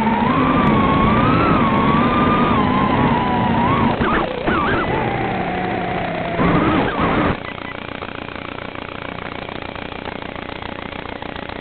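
Swallow 130 FPV quadcopter's electric motors whining, the pitch rising and falling with the throttle, picked up by the onboard camera's microphone. About four seconds in the quad comes down in grass: the motor sound turns ragged, drops into a falling whine, gives one last short burst and cuts off about seven seconds in, leaving only a steady hiss.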